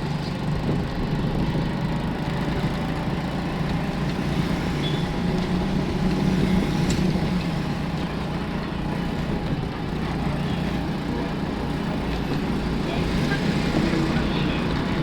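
Street traffic: vehicle engines running steadily, with a low hum and no sudden events.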